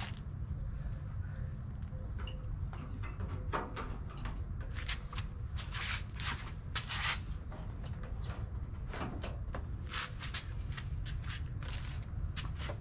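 Scattered light clicks and rustling of hands handling small plastic parts over a steady low rumble.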